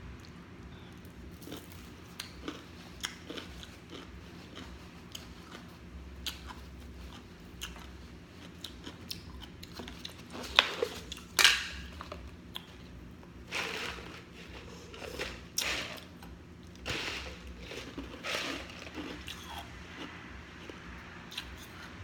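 A person biting and chewing crunchy food close to the microphone: scattered small crunches, two sharp, loud bites about halfway through, then several longer bouts of crunching.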